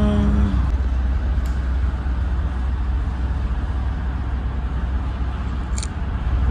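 Steady low rumble of room noise with a faint hiss, and a single short click near the end.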